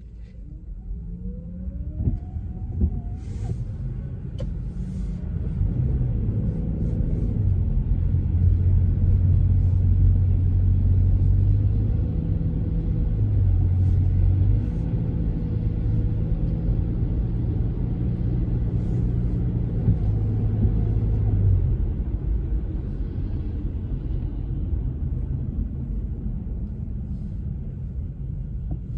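Car engine and tyre rumble heard from inside the cabin as the car pulls away and picks up speed, with a brief rising whine at the start. The engine note holds and shifts a few times in the middle, then the rumble eases off over the last several seconds as the car slows.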